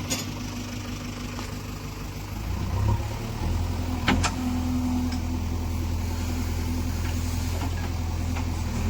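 JCB 3DX backhoe loader's diesel engine running steadily. Its note changes about three seconds in, and there are two sharp knocks, one near the start and one about four seconds in.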